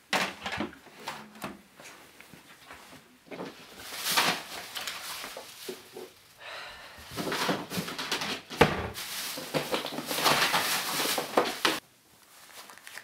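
Rummaging and handling noises: a plastic bin bag rustling, with things knocking as they are moved about. It comes in bursts, the longest running through the second half and cutting off suddenly near the end.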